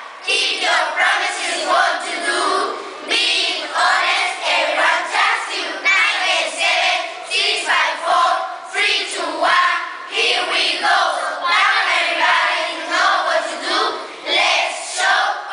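A large group of children chanting a rap together in unison, their voices keeping a steady, even beat without accompaniment.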